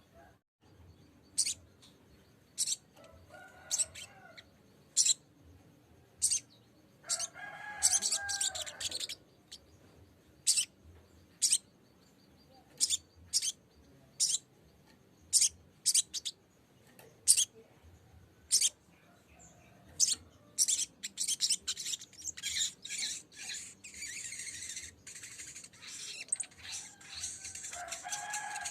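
Sogok ontong (spiderhunter) calls: sharp, very short high chips about once a second, breaking into a fast, dense chattering run over the last several seconds. A few lower calls that bend in pitch come in between, about four seconds in, around eight seconds in and again near the end.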